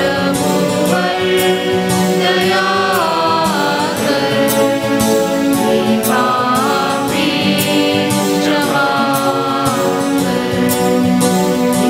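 Liturgical hymn sung by a group of voices with instrumental accompaniment and a regular beat, sustained melodic lines that slide between notes.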